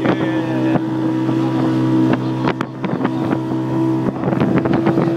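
Motorboat engine running steadily at cruising speed, a constant hum, with irregular knocks and bumps over it, most of them in the second half.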